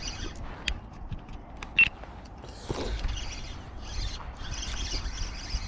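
Spinning reel being cranked to wind in a small hooked fish on a bent rod. A sharp click comes about two seconds in, and a steady hiss joins from about three seconds in.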